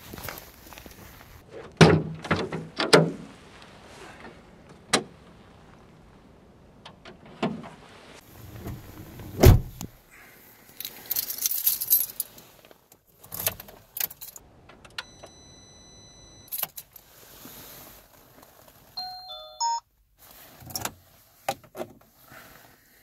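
Car keys jangling, with clicks and knocks from the Opel Astra G's door and cabin as someone climbs into the driver's seat. The driver's door shuts with a heavy thud about nine and a half seconds in. Rustling follows, then a few short electronic tones in the second half.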